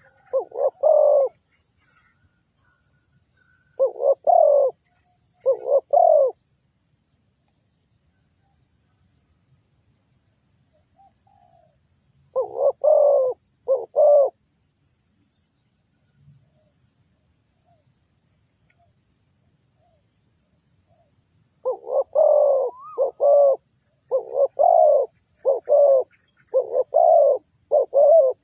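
Spotted dove cooing: short phrases of a few notes each, in bouts with long pauses between them and a quick run of phrases in the last several seconds. Faint high chirping of small birds runs underneath.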